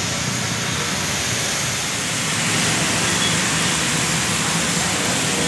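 Traffic on a rain-wet road in drizzle: a steady hiss of tyres on wet tarmac over a low engine hum, a little louder about halfway through.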